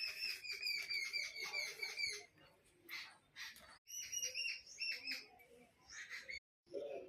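A small bird chirping in quick runs of short, evenly repeated notes, each run falling slightly in pitch, broken off by two abrupt silent gaps where the recording is cut.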